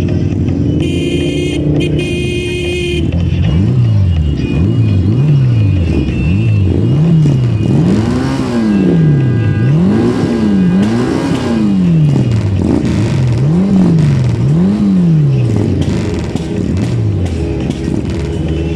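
A pack of motorcycle engines being revved over and over, throttles blipped up and then let fall, many overlapping, over the steady idle of the bike underneath. Two short shrill blasts sound about a second in.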